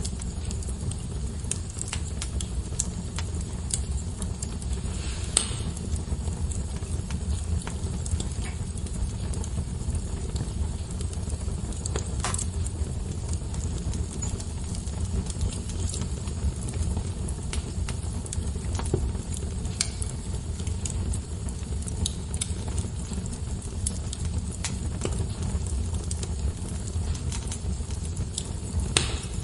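Wood fire burning in a fireplace: a steady low rumble with scattered crackles and pops, a few louder snaps about 5, 12 and 29 seconds in.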